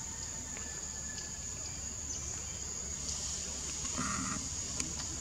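Steady high-pitched insect drone, with a few faint clicks and a short call about four seconds in.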